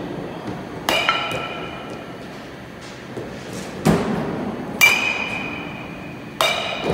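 Baseball bat hitting pitched balls, three sharp hits each followed by a short ringing ping, with a duller thud between the second and third.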